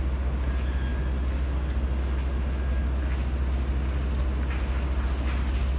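A boat engine running steadily: a low, even drone with a slight regular pulse.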